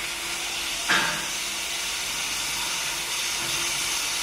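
Commercial 24-hole ice cream cone maker running, with a steady hiss of steam from its hot cone moulds and one sharp knock about a second in.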